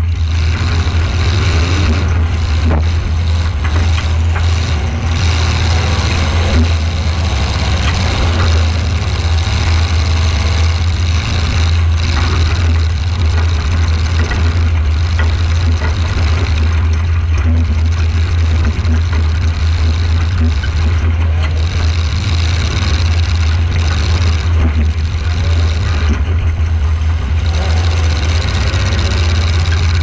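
Demolition derby car's engine running loud and steady, heard from a camera mounted on the car's body, with occasional sharp knocks of metal hitting metal.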